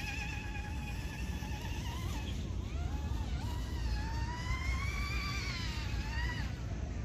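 Electric motor and propeller of a small RC speed boat on a 4S battery whining across the water, the pitch rising and falling with the throttle. It dips around two seconds in, climbs to a high steady whine, then falls off about six and a half seconds in. A low rumble runs underneath.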